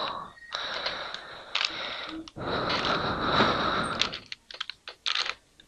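Rustling and scraping as a 3x3 Rubik's cube is handled, then, a little after four seconds in, a run of short, sharp plastic clicks as its layers are turned.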